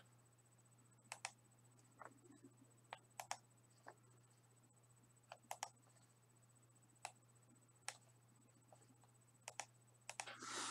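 Faint, scattered clicks at a computer, some in quick pairs, as the mouse and keys are worked to bring up an on-screen randomizer. A low steady hum and a faint high steady tone sit under them.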